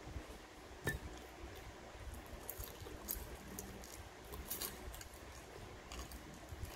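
Close-up eating sounds: fingers picking fried tilapia and rice off a plate, then mouth-eating by hand, with wet chewing and lip smacks as small scattered clicks. One sharper click comes about a second in.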